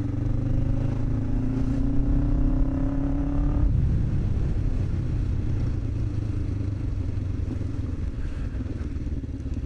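Motorcycle engine under acceleration, its pitch rising steadily for about three and a half seconds; then the revs drop suddenly and it runs on lower.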